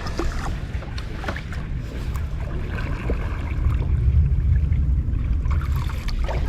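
Kayak paddling on a lake: the paddle dips and splashes through the water, over a low rumble that swells in the middle and eases off near the end.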